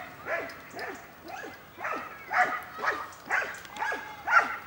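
Protection-trained shepherd dog barking repeatedly at a decoy, about two sharp barks a second, some louder than others.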